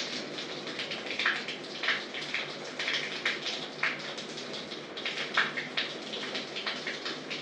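Water splashing and dripping in a shower stall: a steady wash with irregular sharper splashes.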